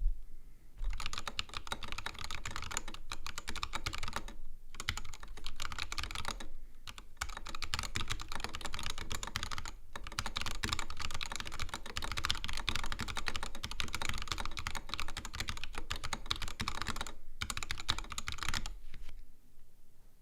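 Typing on a Mark: 65 65% gasket-mount keyboard with a black anodized aluminum case, an FR4 plate, stock unlubed Durock L2 switches and XDA Canvas keycaps: a steady stream of key clicks with a few brief pauses, stopping shortly before the end.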